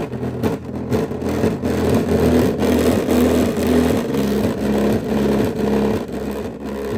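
A 3-inch AMW home-theater speaker driver in a Kinyo SW-6106 subwoofer box, playing a quick run of changing bass notes loudly, with the cabinet rattling and buzzing along. It fades out near the end.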